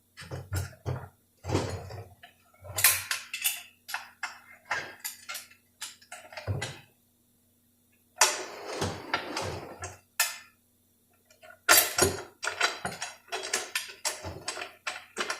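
Metal tools and parts clinking and knocking while working inside a Dodge 46RE automatic transmission case: an irregular run of sharp taps and clatters, with two short quiet pauses past the middle.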